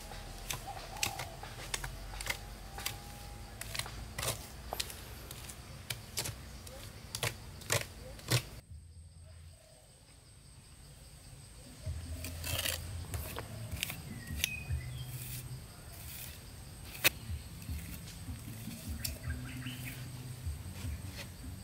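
Irregular light clicks and knocks of handwork with building materials, with a short quieter gap about nine seconds in.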